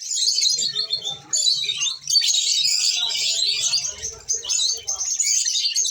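Lovebirds chirping in a dense, high-pitched chatter, with a couple of brief breaks in the first two seconds.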